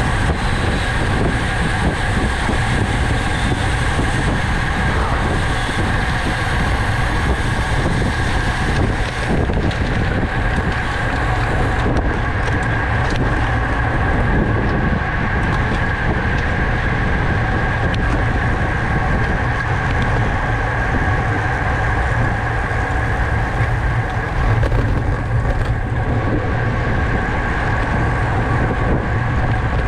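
Steady rush of wind over the microphone of a camera riding along on a road bicycle in a criterium race, with a faint steady whine through it.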